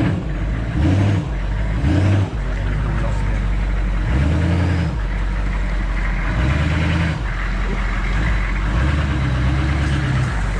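Hummer H1's engine pulling at low speed along a flooded, muddy trail, its pitch stepping up and down several times as the throttle changes, with a constant wash of tyre and water noise.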